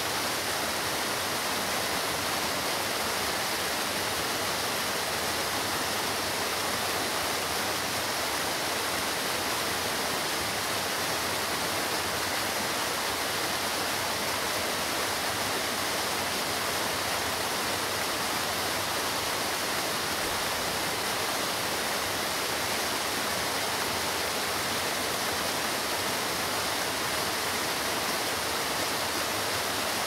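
Waterfall pouring onto rock: a steady, bright rush of falling water with little low rumble and no change in level.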